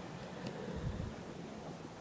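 Wind buffeting the phone's microphone, a low rumble about a second in, over a steady background hum.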